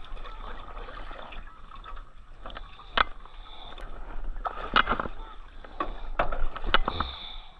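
Paddling on a river: water splashing and sloshing, with several sharp knocks and splashes at irregular intervals, the loudest about three seconds in and a cluster in the second half.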